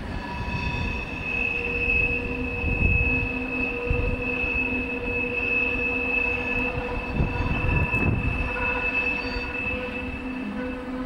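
Wheels of a Rhaetian Railway electric railcar train squealing on a curve: a steady high-pitched squeal over the low rumble of the train on the rails. The squeal stops shortly before the end.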